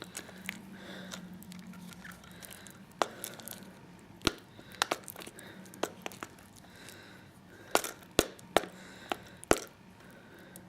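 Spoon working a thick homemade conditioner of coconut oil, castor oil and aloe gel in a bowl, giving scattered, irregular sharp clicks against the bowl over a faint steady hum.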